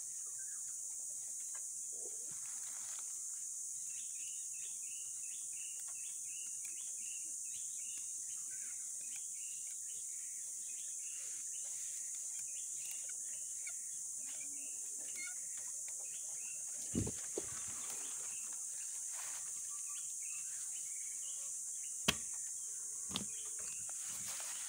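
Steady high-pitched drone of insects in tropical forest. A bird calls in a long run of short repeated notes early on, and a few sharp clicks sound near the end.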